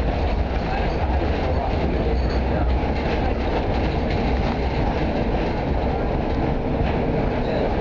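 Electric street tram running along the street, heard from inside the car: a steady low rumble from its motors and steel wheels on the rails, with faint clicks over it.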